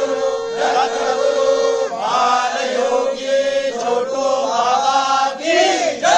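A group of men chanting together in unison, over a steady held tone that stops about two seconds in.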